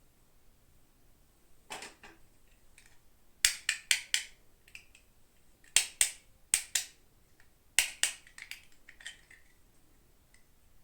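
Toy packaging being handled and opened by hand: bursts of sharp plastic clicks and crackles, several short clusters with quiet gaps between them.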